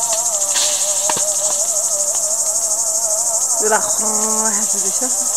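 Steady high-pitched chorus of insects singing in the orchard trees. A wavering pitched tone runs under it through the first half, and a short call with held pitches sounds about four seconds in.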